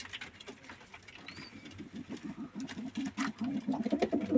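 Domestic tumbler pigeons cooing, a rapid low pulsing that starts faint and grows louder over the last couple of seconds, with scattered light clicks and scuffles.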